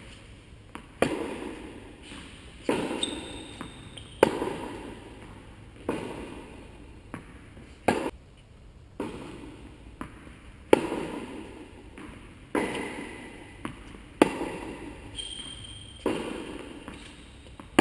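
Tennis rally: a tennis ball struck by rackets and bouncing on the court, a sharp hit about every one and a half to two seconds, some louder and some fainter. Each hit echoes in a large indoor hall.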